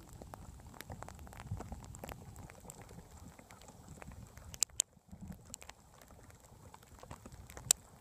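Sled dog team running in snow: an irregular patter of paws and the sled moving over the snow, with a few sharp clicks, two a little past halfway and one near the end.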